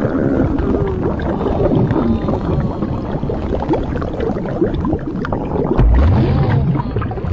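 Cartoon body-inflation sound effect: continuous gurgling and sloshing layered with creaking, stretching squeaks that wobble up and down in pitch, and a deep rising groan about six seconds in.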